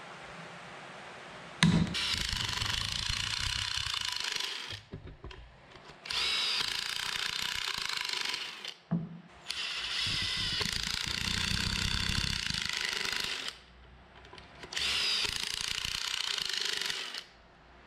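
Ryobi cordless drill boring pocket holes through a pocket-hole jig into a wooden board, in four runs of a few seconds each with short pauses between.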